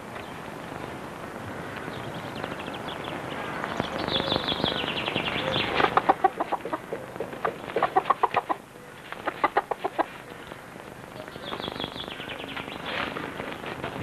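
A hen cackling in rapid runs of clucks, loudest from about four seconds in until about ten seconds, then one more short run near the end.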